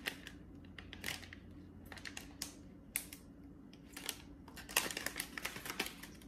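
Dry crackling and clicking from dried bay leaves and their packaging being handled, with a dense flurry of crackles near the end, over a faint steady low hum.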